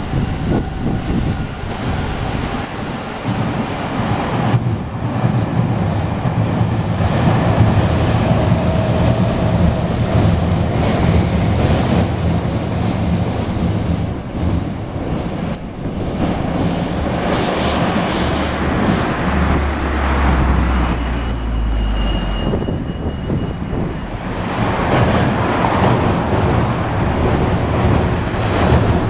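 Meitetsu electric trains passing on an elevated railway viaduct: a continuous roar of wheels and traction motors, mixed with road traffic and wind buffeting the microphone.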